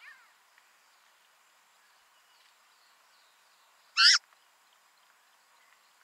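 Faint birdsong of repeated short, high, falling chirps, with a brief falling call at the very start. About four seconds in comes one loud, brief bird call, much the loudest sound.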